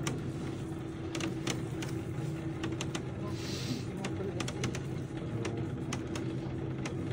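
Open cable lift running through the volcano's rock shaft: a steady mechanical hum with scattered sharp clicks, and a brief hiss about three and a half seconds in.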